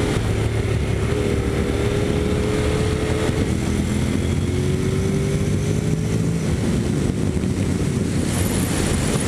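Honda NC750X's parallel-twin engine running while riding at a steady speed, with wind rush over the microphone. The engine note sinks slightly and then climbs a little again partway through.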